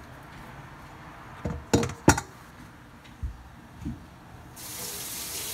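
A few sharp knocks and clinks of kitchenware being handled and set down, the loudest two about two seconds in. Near the end a kitchen tap is turned on and water runs into the sink.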